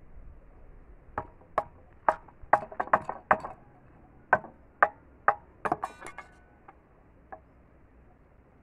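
Machete blade striking bamboo on a wooden block: about a dozen sharp, irregular chopping knocks that stop about six seconds in, followed by two faint taps.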